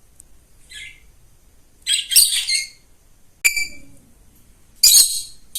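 A small bird chirping: short, sharp, high-pitched calls in four separate bursts, the loudest about two seconds and five seconds in.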